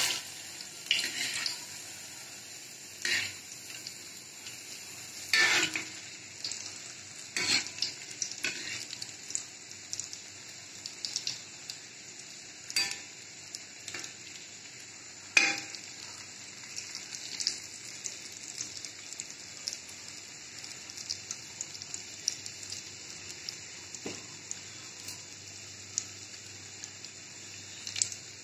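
Batter-coated paneer bread pakoras sizzling steadily as they deep-fry in hot oil in an aluminium kadai, with a metal slotted skimmer clinking and scraping against the pan now and then as they are turned, most often in the first half.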